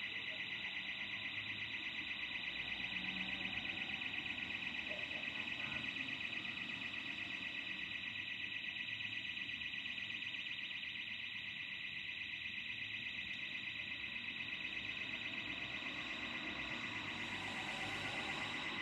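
Burglar alarm sounding continuously: a high, rapidly pulsing electronic tone that holds steady without a break.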